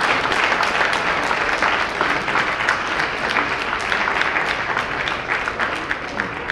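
Church congregation applauding: many hands clapping in a dense, steady patter that slowly dies down.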